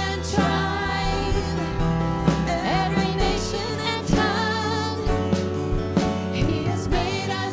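Worship song performed live: a singing voice with vibrato over a band with steady bass and regular drum hits.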